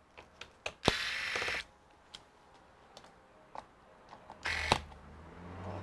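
Hands working on a laptop's bottom cover during reassembly: twice, a sharp click with about half a second of scraping handling noise, plus a few light ticks in between.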